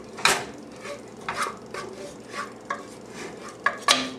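A spatula scraping and knocking against a pot as chicken and beans are stirred, in irregular strokes about once a second, the loudest knocks about a third of a second in and near the end.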